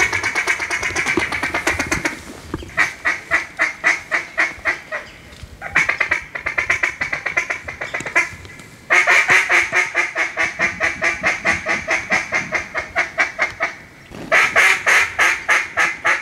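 Duck quacking in fast, even runs of about five quacks a second, several runs with short breaks between them. The loudest run starts about nine seconds in.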